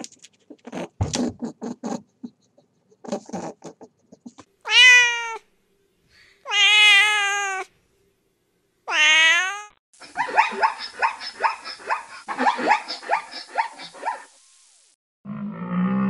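A kitten meowing: three loud, drawn-out meows, followed by a fast run of shorter calls. A low call from a deer begins near the end.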